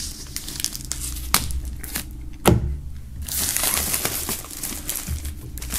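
Plastic shrink-wrap film being cut with a folding knife and peeled off a cardboard box: crinkling plastic with a few sharp snaps, the loudest about two and a half seconds in, then denser crinkling over the last couple of seconds as the film is pulled away.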